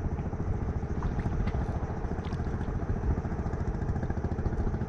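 Small boat engine running steadily, a low, evenly pulsing drone.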